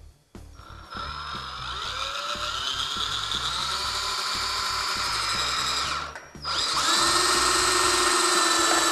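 Cordless drill driving a GRK R4 self-drilling screw into steel metal studding. The motor whines steadily for about five seconds, stops briefly, then starts again louder for a second run.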